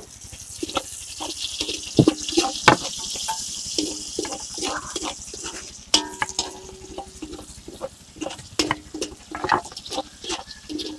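Metal spatula scraping and tapping against a large aluminium wok while chopped food sizzles in oil, many short scrapes, some leaving a brief metallic ring.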